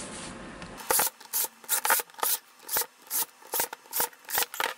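Hand screwdriver turning a screw in the plastic housing of a Makita DDF456 cordless drill: a run of short, regular scraping strokes, about two to three a second, starting about a second in.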